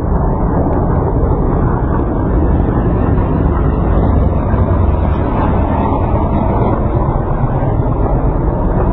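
Aircraft engines droning steadily overhead.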